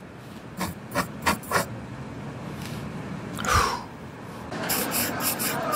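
A few light clicks, a short creak about three and a half seconds in, then a pen scratching quickly across paper near the end.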